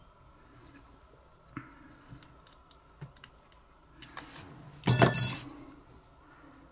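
Light clicks of small metal tools and parts being handled on a workbench, then a short, loud metallic clatter about five seconds in.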